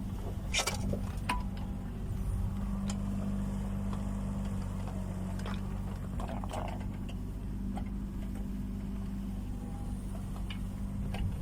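Kubota U20 mini excavator's diesel engine running at a steady working speed while digging, with a few short metallic knocks and clinks from the bucket and machine along the way.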